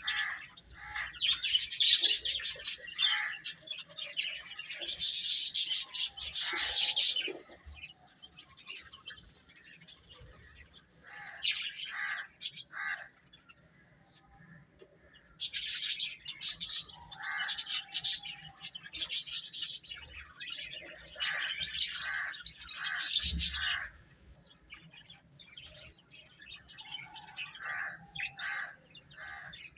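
Baby chicks cheeping: dense runs of short, high peeps in two loud spells, with scattered softer peeps in the lulls between.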